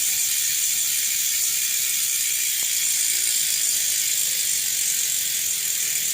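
Hope Pro 4 rear hub freewheeling with no cassette fitted: the freehub pawls click so fast that they blend into a steady, high-pitched buzz.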